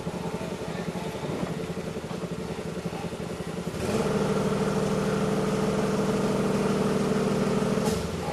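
An engine running steadily. It gets louder and steadier about four seconds in, then drops back near the end.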